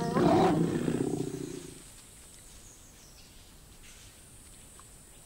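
Lions growling as mating ends: a loud, rough growl in the first two seconds, then only faint background.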